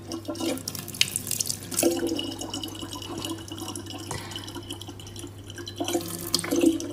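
A thin stream of water from a tap pouring into a large plastic water bottle: a steady trickling splash with a low, even tone underneath.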